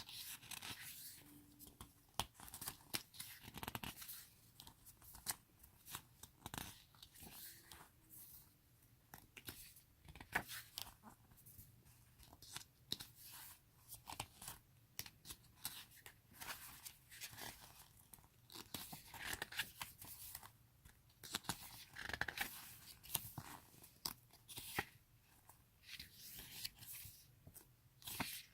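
Pages of an album photo book being turned by hand: faint paper rustles and flicks, coming irregularly one after another.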